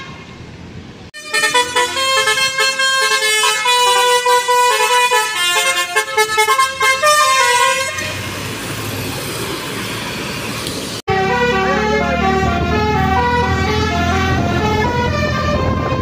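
Basuri V3 multi-tone 'telolet' bus horn playing a stepping melody of short tones for several seconds. It is followed by about three seconds of the bus engine and road noise. The horn then plays another melody about eleven seconds in, over the engine running.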